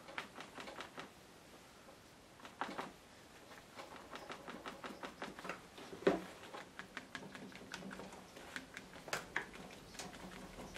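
Sponge with acrylic paint being dabbed on paper clipped to a board: a faint, quick, irregular run of soft taps, with one louder knock about six seconds in.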